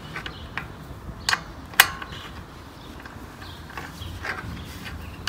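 Light metallic clicks and taps of a hex key on a radiator guard screw being fitted and turned. Two sharp clicks come between about one and two seconds in, with fainter ticks around them.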